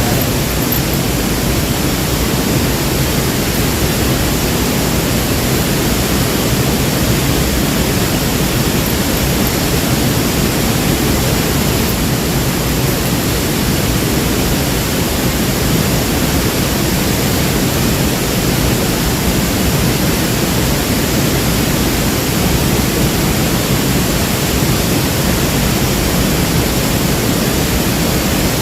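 Waterfall: a loud, steady roar of falling water that holds level throughout.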